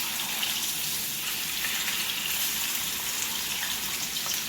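Marinated chicken searing in a hot pan, sizzling steadily with faint crackles.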